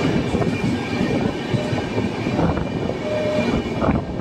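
Passenger train coaches running through a tunnel, heard from inside a coach at an open barred window: a loud, steady rumble and rattle of wheels on rail, closed in by the tunnel walls. A faint thin whine runs through it, and a short squealing note comes a little after three seconds in.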